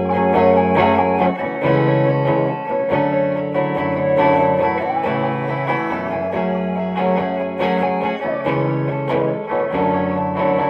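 Electric guitar jam: chords and single notes played in a flowing pattern, changing about every second, over sustained low notes.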